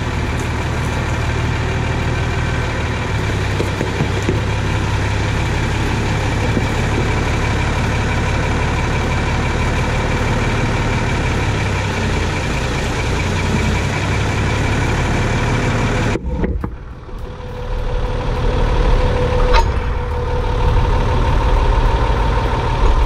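Massey Ferguson 399 tractor's diesel engine running steadily at low revs, heard close from behind. About 16 seconds in the sound changes abruptly and becomes lower and duller, with a steady hum, as the tractor stands over the microphone.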